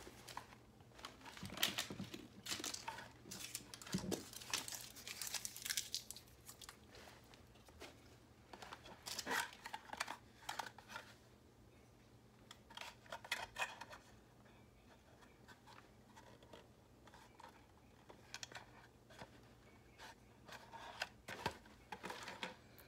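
Small paper candy wrapper crinkling and rustling in the hands, in irregular crackly bouts with quiet gaps between.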